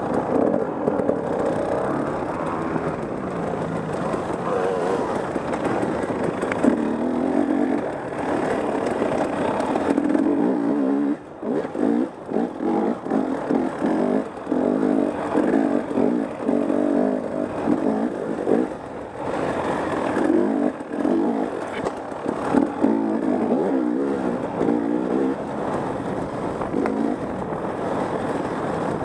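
Dirt bike engine running hard under the rider, its pitch rising and falling as the throttle is worked. From about a third of the way in, for several seconds, it is chopped on and off the throttle in quick stabs before settling back to steadier running.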